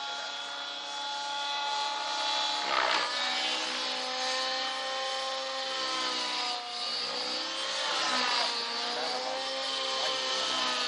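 Align T-Rex 700 radio-controlled helicopter in flight, its motor and rotor note rising and falling in pitch as it manoeuvres, with a brief rush of noise about three seconds in.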